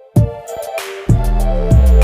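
Background music with a heavy electronic beat: after a brief gap it comes back in with drum hits, a cymbal crash and deep bass, and a bass note slides downward near the end.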